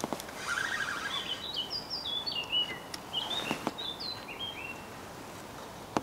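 A songbird singing a phrase of short whistled notes that step up and down in pitch, with a brief lower trill just before it. Two sharp clicks sound, one at the start and one partway through.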